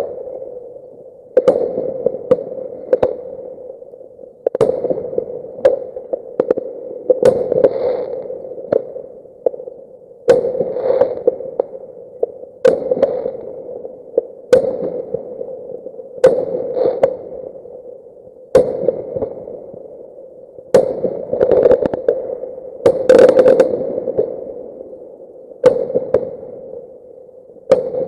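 Distant fireworks: sharp bangs about every one to two seconds, each trailing off in an echoing rumble, sped up to double speed.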